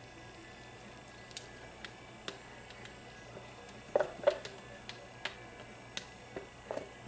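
Scattered light clicks and taps, with two louder knocks about four seconds in and another near the end: plastic soap-making containers being handled and set down on a counter.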